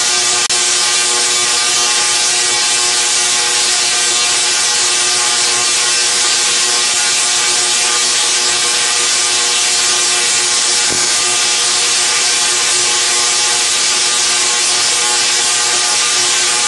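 SIDAC-driven Tesla coil throwing arcs into the open air: a loud, steady buzzing crackle that holds even throughout.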